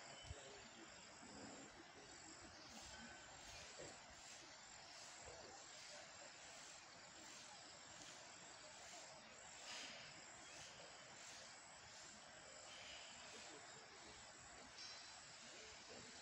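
Near silence: faint outdoor ambience, with a faint high chirp repeating about one and a half times a second, like an insect calling.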